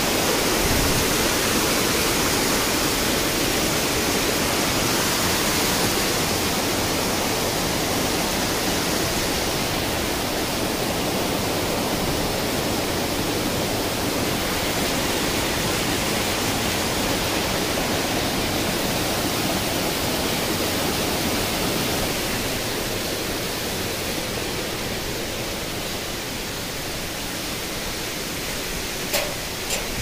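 Rushing water of a forest stream and waterfall: a steady hiss that eases a little in the second half.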